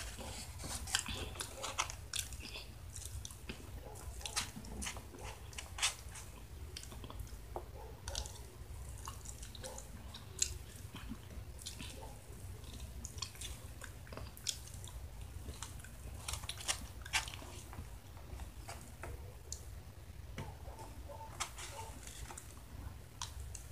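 A person chewing a mouthful of enchilada close to the microphone, with frequent irregular wet mouth smacks and clicks. A steady low hum runs underneath.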